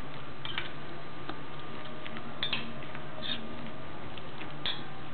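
A metal spoon stirring a thick vegetable fritter batter in a ceramic bowl, knocking and scraping against the bowl in irregular clicks, over a steady low hum.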